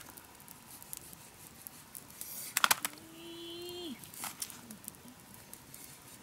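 Large knife clicking and scraping as food is cut on a palm leaf, a few sharp clicks with the loudest about two and a half seconds in. Just after it comes a held, pitched call lasting about a second that drops away at its end.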